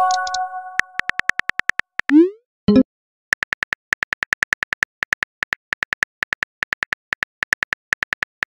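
Phone keyboard typing sound effects: runs of sharp clicks, about four or five a second. A short rising whoosh of a message being sent comes about two seconds in, with a ringing chime at the very start and a brief pop just after the whoosh.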